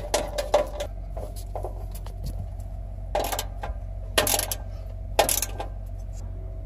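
Screwdriver retightening a screw on a wiring terminal, with small metallic clicks and scrapes in the first second. Then come three short scraping rustles about a second apart as hands work among the wires.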